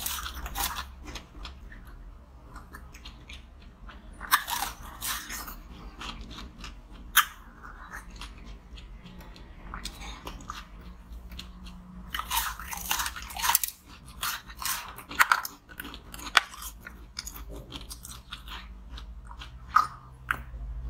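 Teeth biting into frozen green ice cups studded with small beads: clusters of crisp crunches every few seconds, with a single sharp crack about seven seconds in and quieter chewing of the ice between bites. A low steady hum lies underneath.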